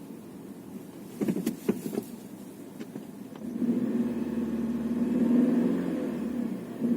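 Car: a quick cluster of sharp knocks about a second in, a couple of faint clicks, then engine and road noise rising and holding steady from about three and a half seconds in as the car drives.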